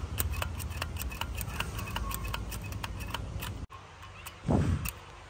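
A pet grooming brush being stroked through a Persian cat's shedding coat, making quick sharp clicks about three to four times a second over a steady low hum. The clicking stops suddenly, and a single loud low thump comes near the end.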